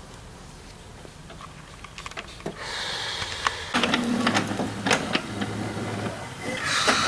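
HP Ink Tank 315 inkjet printer starting up after power-on with new cartridges fitted: its motor whirs and its mechanism makes a quick run of clicks and clacks, beginning about three seconds in and growing louder toward the end.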